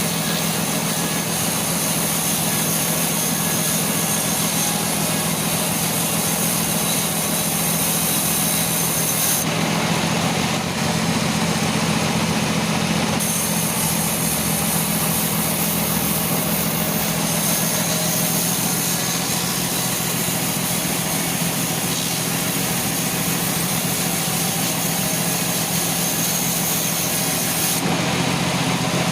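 Sawmill machine saw running steadily with a low hum under a continuous hiss. The high hiss drops away briefly about nine seconds in and again near the end.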